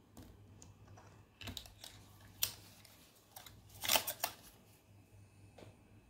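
Metal snap hooks of a shoulder strap clicking and rattling as they are clipped onto a speaker's strap rings: a few light clicks, one sharp click about two and a half seconds in, and a cluster of louder clicks about four seconds in.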